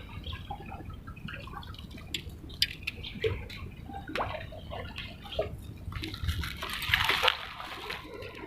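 Water sloshing and dripping, with scattered small splashes and clicks, briefly louder about six to seven seconds in.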